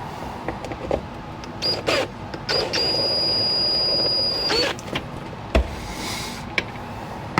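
Power drill boring out a hole to a larger size: two short trigger blips, then a steady motor whine for about two seconds, followed by a few light knocks.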